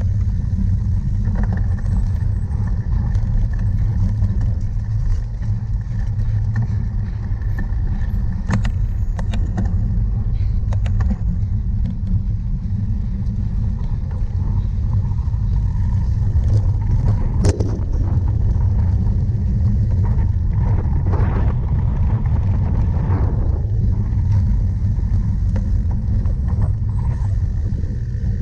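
Cyclocross bike being ridden hard over rough ground: a steady low rumble with scattered clicks and rattles, thickest in two stretches in the middle.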